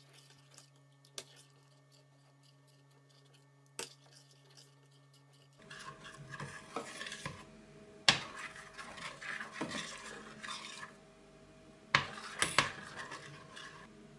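Spoon stirring chopped chocolate into warm cream in a stainless steel saucepan, scraping the pan and knocking against its sides while the chocolate melts. Faint, with only a few light taps at first, then steadier scraping from about halfway, with several sharp clinks.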